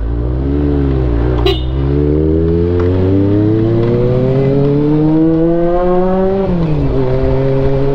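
Honda CB400 motorcycle engine under way, revs climbing slowly for about five seconds, then falling quickly and settling at a steady pitch. There is a sharp click about a second and a half in.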